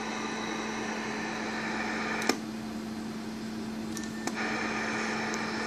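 Steady hiss with a low hum under it from a powered-up CB radio and its base amplifier/regulated power supply. A click sounds about two seconds in; the hiss then thins and comes back about two seconds later.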